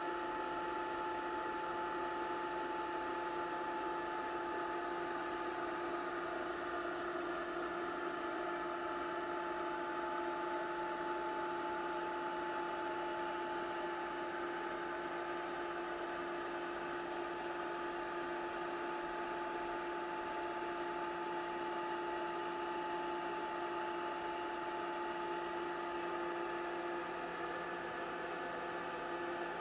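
Steady electrical hum with two held tones, one low and one higher, over a constant hiss.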